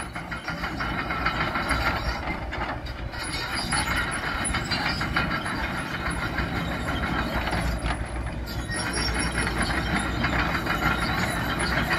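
Tracked excavator travelling over packed dirt: its steel tracks clank and squeak steadily over the low, even run of the diesel engine.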